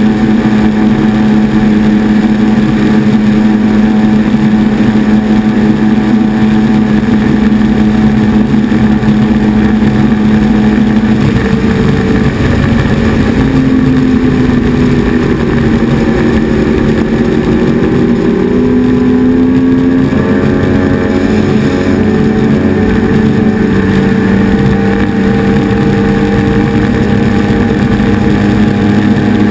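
Mercury outboard on a speedboat running at high speed, with the rush of spray and wind over the hull. The engine note holds steady, dips in pitch for several seconds about halfway through, then climbs back.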